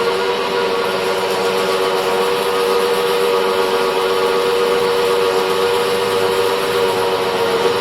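Hydraulic drilling machine running: a steady mechanical hum with a strong held tone, even in level throughout.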